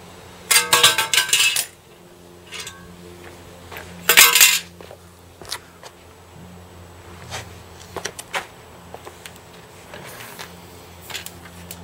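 Two clattering crashes of rusty sheet-steel body panel pieces landing on concrete, about half a second in and again about four seconds in, the first lasting about a second with a metallic ring. Scattered light taps and clicks follow.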